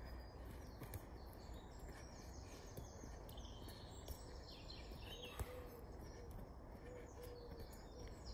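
Birds singing and chirping over a faint steady background hum, with a pigeon cooing low in the second half. A few light taps of a football being worked with the feet, one sharper knock a little past halfway.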